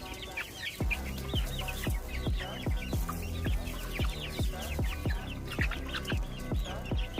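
Background music with a steady beat, with a flock of chickens clucking and chicks peeping over it in many short, high calls.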